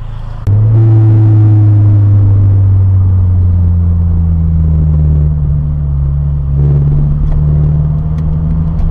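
Low, steady drone of a car's engine and road rumble inside the cabin, recorded by the dashcam. It starts suddenly about half a second in and holds fairly even while the car slows.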